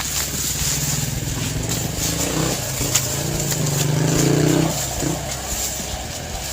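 A motor vehicle engine runs steadily, grows louder about four seconds in, then eases off.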